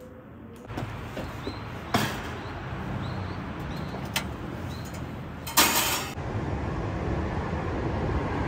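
Street ambience: a steady low rumble of traffic with a few short high chirps, scattered clicks, and a brief loud rush of noise a little past halfway.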